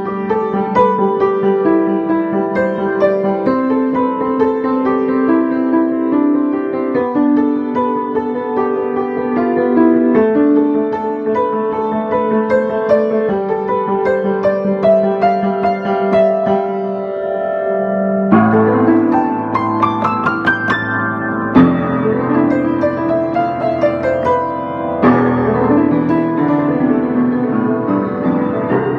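Solo piano improvising on a melody spelled out from the letters of a name. Slow, held notes come first; about two-thirds of the way in, deeper bass notes enter with quick rising runs and a few accented chords.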